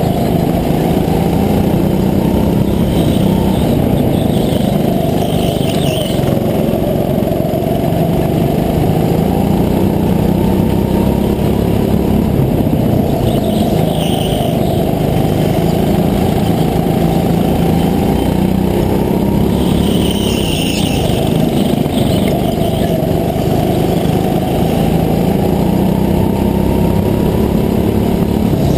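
Go-kart engine heard from onboard at racing speed, its pitch rising and falling with the throttle through the corners, with other karts running close around it.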